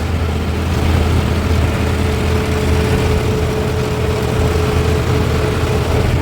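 Heavy diesel engine of a backhoe loader or tractor running steadily, with a thin steady whine joining in about two seconds in and fading near the end.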